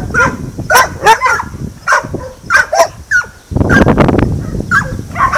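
Dogs barking in a quick series of short, sharp barks, about two or three a second, with one longer, rougher bark about three and a half seconds in.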